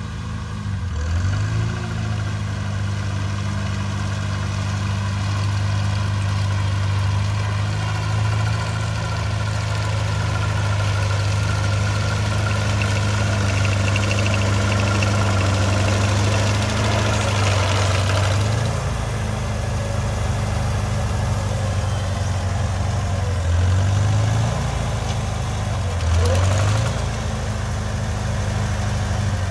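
Farmall Cub tractor's small four-cylinder flathead engine running steadily under load, driving a sickle bar mower whose knife is cutting the pond-bank grass, with a mechanical clatter over the engine. The engine pitch dips briefly about a second in and a few times near the end.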